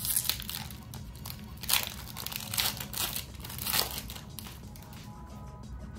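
Pokémon booster pack wrapper crinkling and tearing open by hand, in several short bursts over the first four seconds, then quieter.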